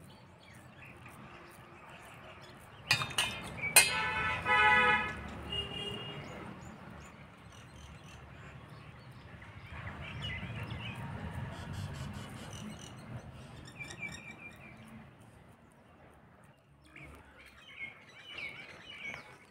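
Birds chirping and calling in the background. About four seconds in comes a louder call lasting about a second, just after a couple of sharp clicks.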